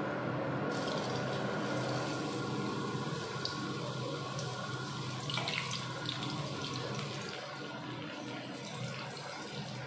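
Batter-coated bitter gourd slices sizzling in hot oil in a wok as they are dropped in for deep-frying. The sizzle starts about a second in and keeps going, with a few louder crackles as more slices hit the oil.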